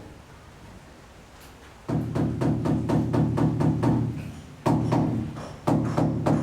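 Background music with a quick, steady percussive beat over sustained low tones, coming in about two seconds in after a quiet start.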